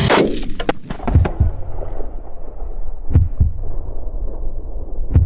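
A single shot from a LaRue PredatOBR 7.62 rifle, sharp and loud, cuts off the music. It is followed by a low double thump, like a heartbeat, repeating about every two seconds over a low rumble.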